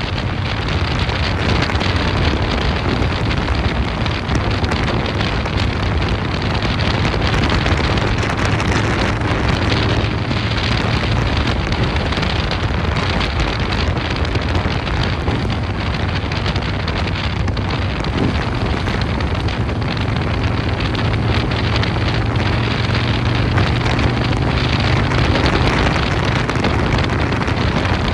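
Harley-Davidson Dyna Super Glide Custom's S&S 107 cubic-inch V-twin, breathing through a Vance & Hines 2-into-1 exhaust, running steadily under way, with wind rushing over the microphone.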